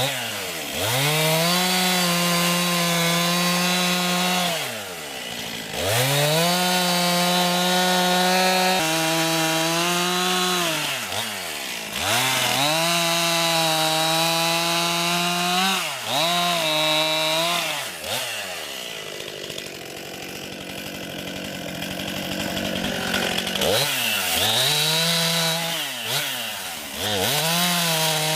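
Gas chainsaw running at high revs and cutting wood; the engine pitch sags sharply and recovers every few seconds as it loads up. This is typical of the bogging that the owner puts down to a carburetor needing adjustment. The saw runs quieter for a few seconds about two-thirds of the way through.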